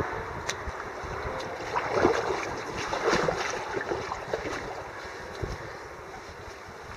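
Water splashing and sloshing around a kayak on a fast, flooded river, loudest about two and three seconds in, over wind rumbling on the microphone.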